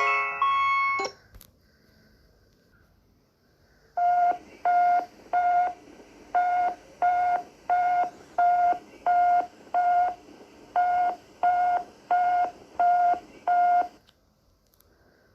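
Electronic emergency alert tone: about fourteen short beeps at one steady pitch, roughly one and a half a second, in three runs separated by brief pauses. A multi-note electronic chime ends about a second in, before the beeping starts.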